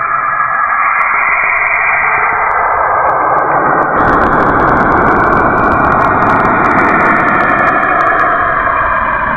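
Saturn's radio emissions converted into sound: a loud, steady, eerie whooshing noise with slowly shifting layers. About four seconds in it grows fuller and deeper.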